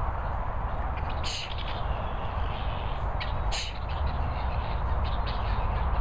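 Helmeted guineafowl giving harsh calls, two short loud ones about a second in and again about three and a half seconds in, with fainter ones between, over a steady low rumble.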